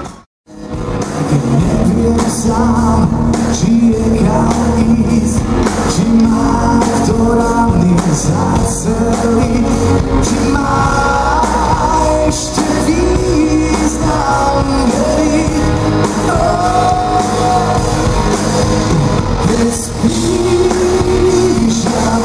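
Live rock band playing with a male lead singer: electric guitars, keyboard and drums. The sound drops out completely for about half a second at the very start, then the song comes back in.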